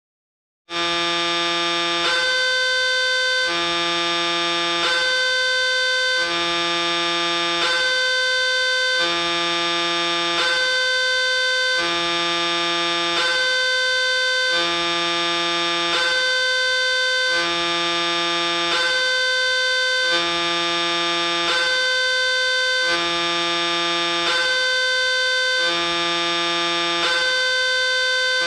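Indonesian railway level-crossing warning siren sounding: an electronic alarm that switches back and forth between a lower and a higher tone about once a second, starting abruptly just under a second in.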